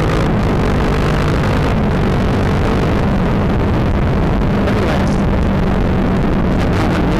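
Kawasaki Ninja 650's parallel-twin engine running steadily while the motorcycle is ridden, under heavy wind rush on the microphone.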